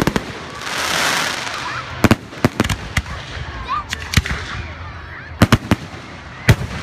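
Aerial firework shells bursting: a run of sharp bangs at irregular intervals, with a burst of crackling hiss about a second in.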